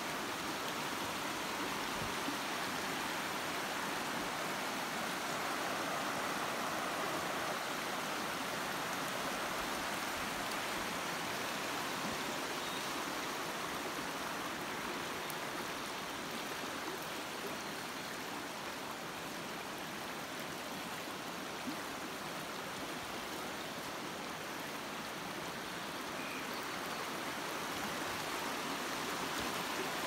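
Shallow, rocky stream running over stones and small riffles: a steady rush of flowing water.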